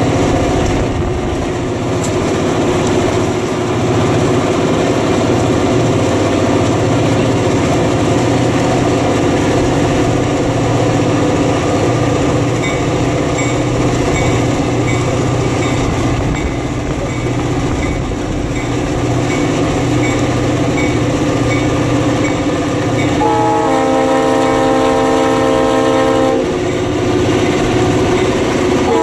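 EMD GP38 diesel locomotive pulling a heavy freight train, its engine running steadily under load over rumbling wheels on the rails. Near the end a multi-note air horn sounds for about three seconds, and a second blast starts just at the close.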